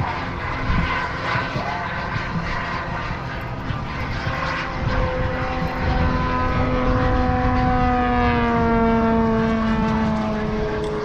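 A propeller aircraft's engine droning, coming in about four seconds in, then slowly dropping in pitch toward the end, over wind rumble on the microphone.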